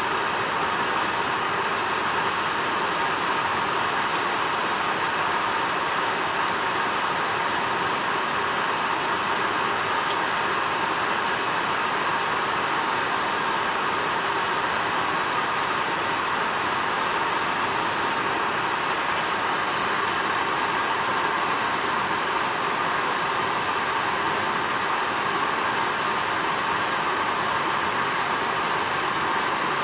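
Steady cabin noise inside an Airbus A380 on approach to land: a constant rush of airflow and engine hum. A thin high tone joins about two-thirds of the way through.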